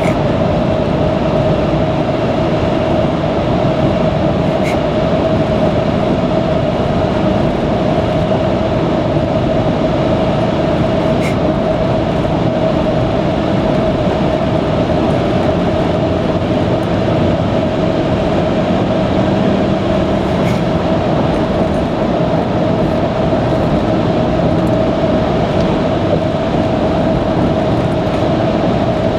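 Car cabin noise at expressway cruising speed: steady tyre and road roar with engine hum and an even drone, unchanging throughout, with a few faint ticks.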